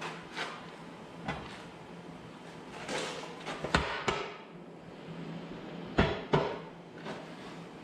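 Hammer knocking on steel parts of a loader bracket, a handful of scattered sharp metallic hits, the loudest about four and six seconds in, as the bracket's holes are brought into line for the bolts.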